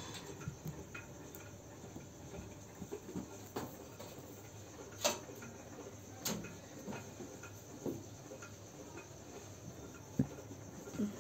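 Two kittens play-fighting: scattered soft scuffling and taps of paws, with a few sharper knocks, the loudest about five and six seconds in.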